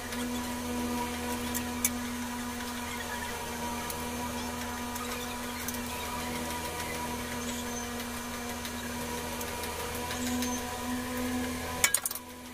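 A steady, even machine hum with a few scattered faint clicks. The hum changes and breaks off with a quick cluster of clicks near the end.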